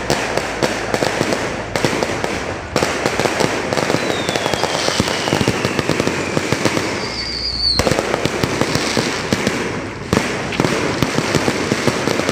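Aerial fireworks going off in quick succession: a dense, continuous stream of bangs and crackling from the bursting shells. A long falling whistle runs through the middle.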